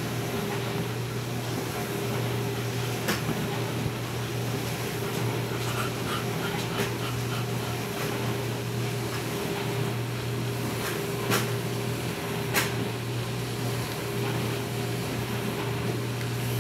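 A bulldog panting hard, out of breath, over a steady low hum. A few brief sharp clicks come about 3 seconds in and twice more near the end.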